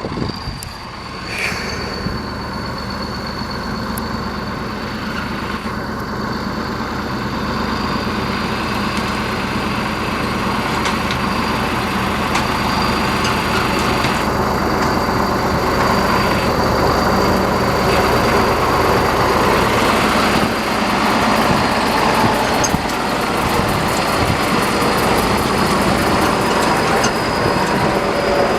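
T-150K wheeled tractor's diesel engine running steadily under load with a thin high whine, growing gradually louder as it works through boggy ground.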